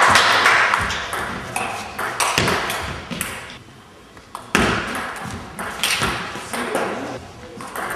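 Table tennis ball clicking rapidly off the bats and the table in a rally, with hall echo. A lull of about a second comes midway, then a new rally starts.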